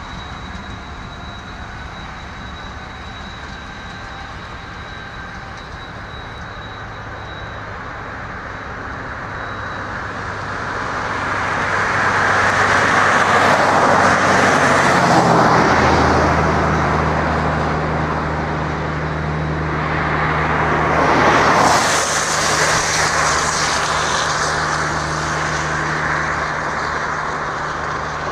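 Union Pacific six-axle diesel-electric locomotives (lead unit an SD70M) approaching at speed. The engines' low drone shifts pitch about halfway through, and the rumble and rush of wheels on rail grow louder as they near.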